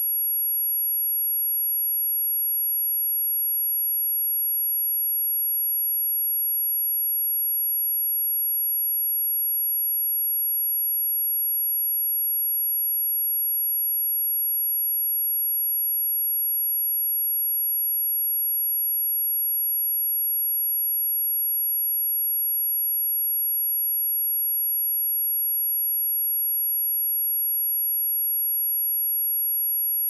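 A steady, high-pitched pure sine tone at 11,367 Hz, held at one constant pitch and level: a test tone for checking speakers and headphones, also played to shake water and dust out of a phone speaker.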